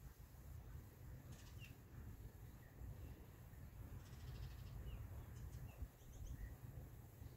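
Faint outdoor ambience: a low steady rumble with scattered short bird chirps, and one soft thump about six seconds in.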